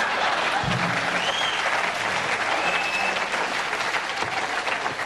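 Studio audience applauding after a joke, dying down near the end.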